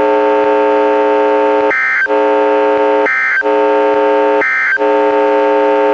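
Three short, shrill bursts of NOAA Weather Radio SAME digital data, about a second and a half apart: the end-of-message code that closes the weekly test. Between the bursts a steady, loud, multi-tone buzz of transmitter interference comes through the weather radio.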